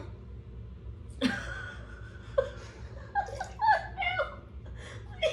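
A woman laughing in short broken giggles, starting about a second in and trailing off near the end.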